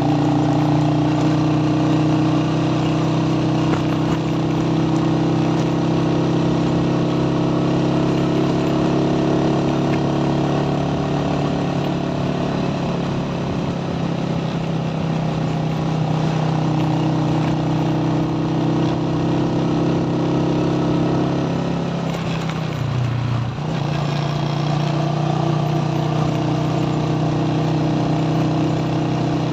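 Motorcycle engine running steadily under way, its note dropping briefly about three-quarters of the way through before picking back up.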